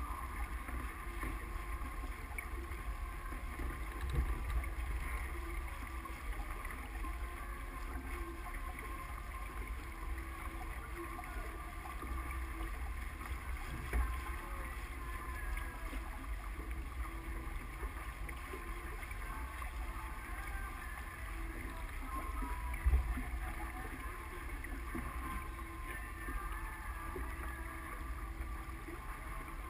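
Wind on the microphone and water running along the hull of a Tripp 37 sailboat under way, a steady rushing with a low rumble. A few dull thumps come through it, the loudest about 23 seconds in.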